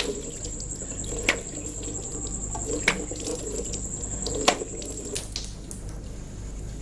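Tap water running into a washbasin, with three sharp splashes about a second and a half apart.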